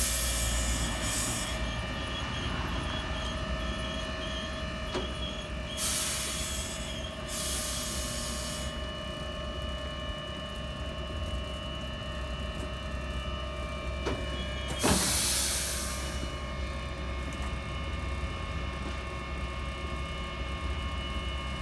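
Sheffield Supertram trams humming steadily, their onboard electrical equipment giving several steady tones at once. Short hisses come about six and eight seconds in, and a louder hiss with a thump about fifteen seconds in.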